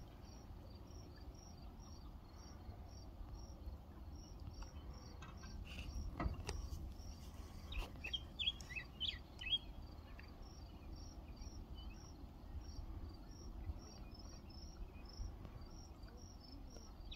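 Crickets chirping in a steady, even rhythm of short high chirps over a low background rumble, with a brief run of bird calls about eight seconds in.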